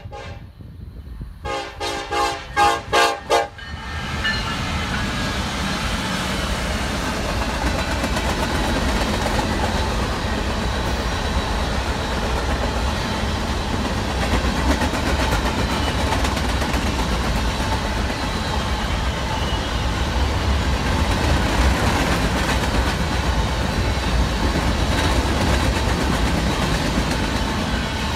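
Diesel freight locomotive's horn sounding in pulsing blasts, ending about four seconds in. Then the steady rolling rumble of a long freight train of covered hopper cars passing close by, steel wheels running on the rails.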